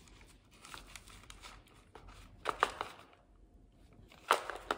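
Hands fitting together the parts of a red plastic volcano mold kit, with light rustling and crinkling. A few sharp plastic clicks stand out, two close together about two and a half seconds in and one near the end.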